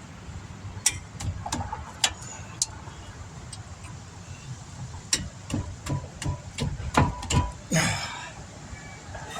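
Irregular metallic clicks and knocks of hand tools and brake parts being handled during front brake work, a few at first and then a quick cluster, with a short scrape near the end, over a steady low hum.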